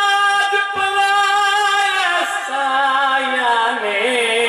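A man's voice chanting in long held notes through a microphone, in the drawn-out melodic style of a zakir's recitation. The note drops to a lower pitch about two seconds in and starts to waver near the end.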